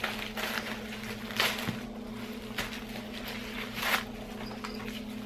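Steady low hum from the motor of a Rock 'n Play baby sleeper, with a few short rustles of the protective wrapping on a leather tote's handles as it is handled; the rustles about a second and a half in and near four seconds are the loudest.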